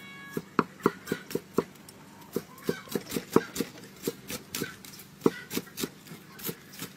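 A cleaver chopping green onions on a thick round wooden chopping block: a quick run of sharp knocks of blade on wood, about three to four a second, with a short pause about two seconds in.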